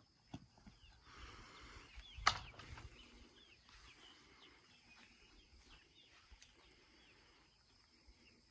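Quiet outdoor yard sound: a steady high-pitched insect drone with scattered short bird chirps, and one sharp knock a little over two seconds in.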